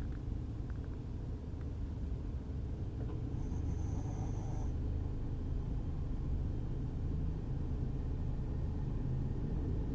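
Steady low road rumble inside a moving car's cabin, with a dog snoring; one thin, high whistling breath comes about three and a half seconds in and lasts about a second.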